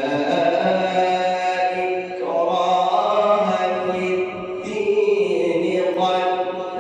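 A male reciter chanting Quran verses in the melodic mujawwad style, with long held notes whose melody shifts a couple of times.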